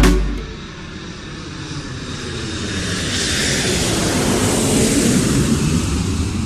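Jet airliner landing close by: engine roar and rushing air swell over the first few seconds, loudest about five seconds in, then begin to ease.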